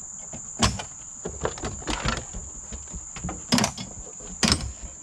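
Several sharp knocks and clunks, three of them louder, over a steady high-pitched insect chorus.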